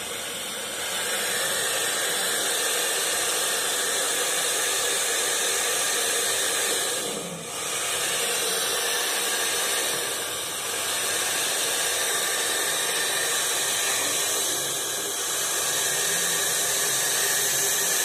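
Hair dryer running on its highest setting, blowing air into a balloon fitted over its nozzle: a steady hiss of fan and rushing air that swells about a second in and dips briefly twice.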